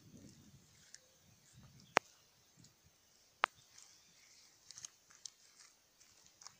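Quiet open-air background broken by two sharp clicks about a second and a half apart, then a few fainter ticks.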